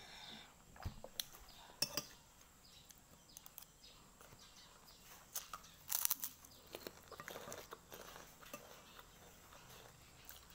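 Close-up eating sounds: chewing and crunching mouthfuls of fried rice and fried chicken, with scattered clicks of a spoon against the plate. The loudest crackly burst comes about six seconds in.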